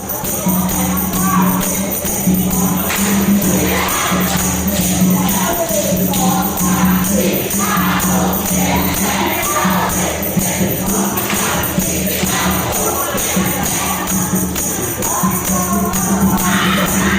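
Many voices chanting together in unison, over a steady low hum.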